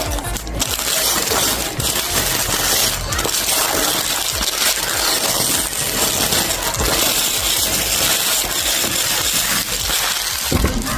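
Packaging being handled and opened: continuous crackling and crinkling with many small clicks.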